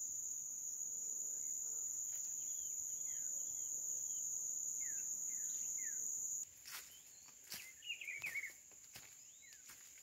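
An insect buzzing steadily at a high pitch, which cuts off abruptly about six and a half seconds in, with a few short descending bird chirps over it. After it stops, light crackles and steps in dry leaf litter and a brief chirping trill.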